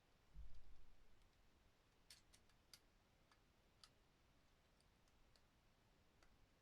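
Faint sharp clicks of plastic action-figure parts being moved and snapped, scattered a few times in a cluster about two to four seconds in, after a dull low thud about half a second in.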